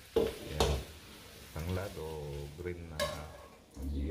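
A metal spoon scraping and knocking against a frying pan as sautéed beef offal is scraped out of it into a pot of broth, with sharp knocks about half a second in and again near three seconds.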